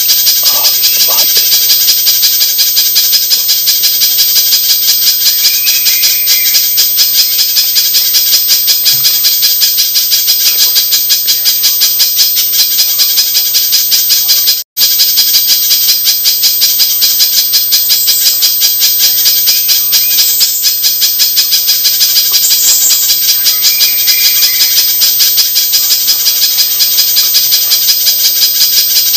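Spiderhunter (pijantung) call played as a bird lure: a fast, unbroken run of sharp, rattling high-pitched chip notes, with a brief break about halfway through.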